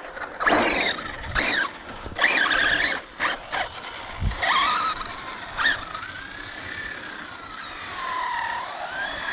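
High whine of a radio-controlled model's electric motor, rising and falling with the throttle. It comes first in several short bursts, then as a longer tone that dips and climbs again near the end.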